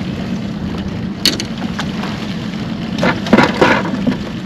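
Boat's outboard motor running steadily at trolling speed, a low even hum. A sharp click comes about a second in, and a short louder burst of sound about three seconds in.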